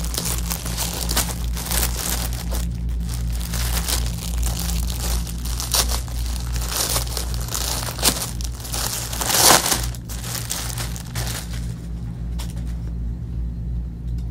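Clear plastic garment bags crinkling as clothes are pulled out and unwrapped, an irregular run of crackles that thins out after about ten seconds, over a steady low hum.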